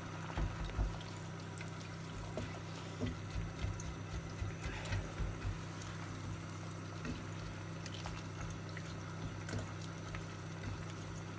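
A silicone spatula stirring melting butter and sugar in a saucepan, with soft, irregular taps and scrapes against the pan over a steady low hum.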